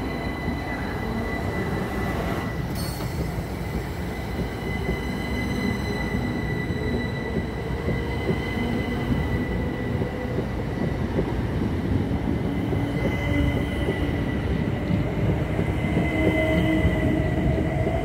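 Southern Class 377 Electrostar electric multiple unit pulling away from the platform and gathering speed: steady running noise from the wheels on the rails, a steady high whine, and lower tones that rise in pitch over the last few seconds as it gets louder.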